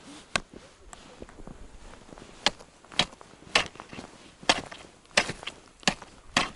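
Ice chisel with a wooden handle striking thin, snow-covered ice, about nine sharp blows a little over one a second: testing ice only about 4 cm thick.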